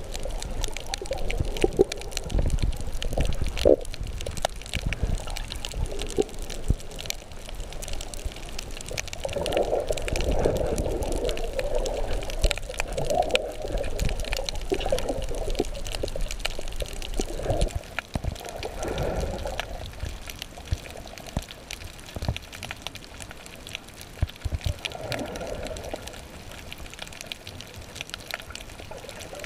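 Water moving around a camera held underwater: muffled sloshing and bubbling in irregular swells, with scattered sharp clicks and crackles, easing off somewhat in the second half.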